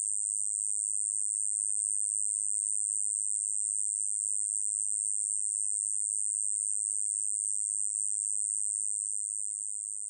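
Small conehead katydid (kkoma-yeochi-bejjangi) singing: one continuous high-pitched buzz, steady and without breaks, fading a little near the end.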